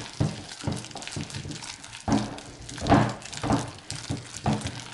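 Silicone spatula stirring thick, sticky slime loaded with sequins and beads in a bowl: irregular wet squishing and small clicks, with a few stronger strokes about two and three seconds in. The slime is thickening as the contact lens solution and baking soda activator mixes into the glue.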